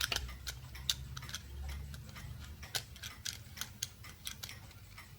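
Opened quartz wall-clock movement running: its stepper motor and loose gear train give light, irregular ticks and clicks, a few a second. The wheels have lost their bearings with the cover off, and the owner thinks the movement is probably not very happy running like this.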